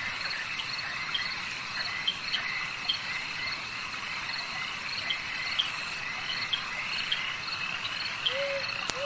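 Night insect chorus: crickets trilling steadily, with short chirps repeating about twice a second. Near the end come two short, lower calls.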